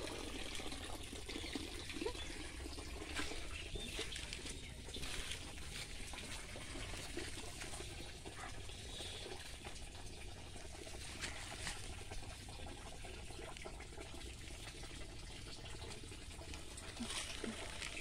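Water trickling and running steadily over waterlogged ground, with a few faint clicks and rustles scattered through it.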